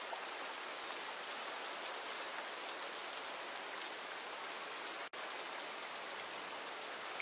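Steady rain falling on a forest, an even hiss of many drops. It cuts out for an instant about five seconds in.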